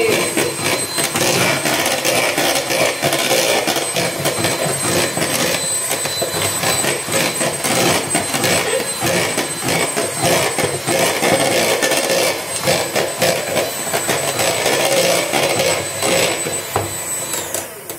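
Electric hand mixer running steadily at speed, its beaters knocking against the bowl as it whips egg whites and sugar to stiff meringue peaks. The motor stops shortly before the end.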